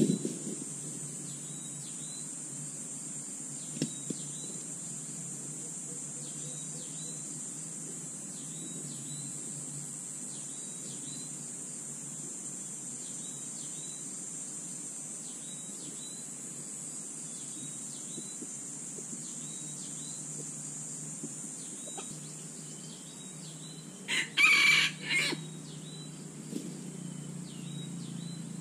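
A rooster crows once near the end, a short, broken crow that is the loudest sound here. Under it runs a steady high insect drone with faint chirps repeating about once a second.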